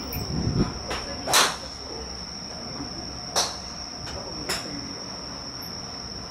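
Titleist 910D2 driver striking a teed golf ball about a second and a half in: one sharp crack, the loudest sound. Fainter sharp clacks come about two, three and five seconds later, over a steady high whine.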